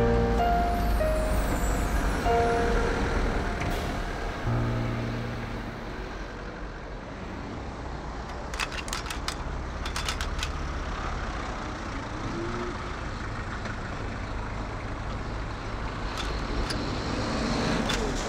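Background music dies away in the first few seconds, leaving a steady low rumble of car-park traffic. About nine to ten seconds in comes a quick run of small metallic clicks from a shopping trolley's coin lock and chain being handled.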